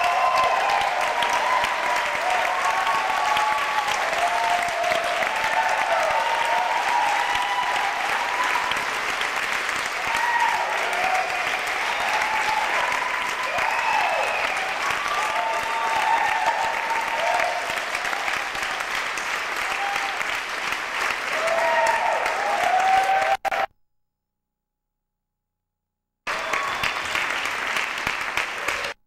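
Audience applauding and cheering. The sound cuts off suddenly about three-quarters of the way through, then the applause returns briefly near the end.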